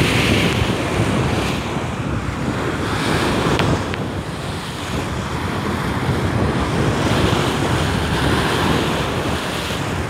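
Lake waves breaking and washing over a rocky shore in surging rushes, with strong wind rumbling on the microphone.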